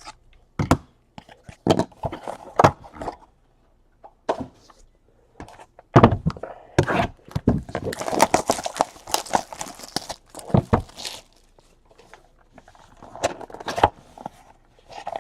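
Trading-card packs and cards being handled on a table: a string of knocks and taps, with a longer stretch of rustling and crinkling of wrappers from about six seconds in.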